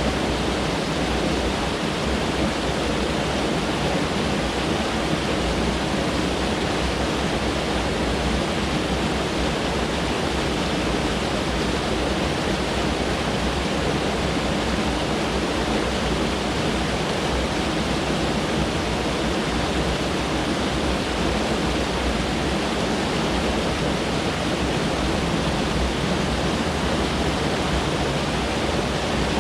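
Mountain stream rushing over rocks, a steady, unbroken rush of water.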